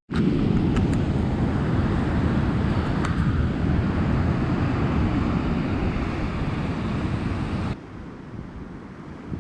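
Strong wind buffeting the microphone: a loud, deep noise that drops abruptly to a quieter hiss near the end.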